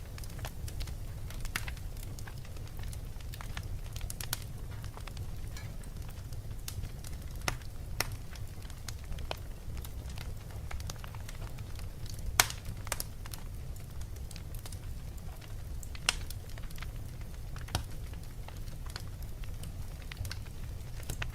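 Wood fire burning in a fireplace: a steady low rumble with irregular sharp crackles and pops. The loudest pops come about halfway through and again a few seconds later.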